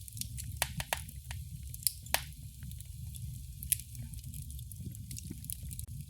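Wood fire in a fireplace crackling: irregular sharp pops and snaps, the loudest pair about two seconds in and another near four seconds, over a low steady rumble of the burning fire.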